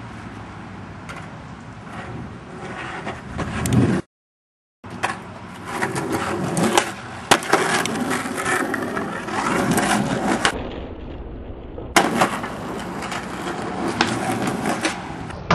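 Skateboard wheels rolling on asphalt, with sharp clacks and knocks from the board hitting the ground. The sound drops out completely for about a second, about four seconds in.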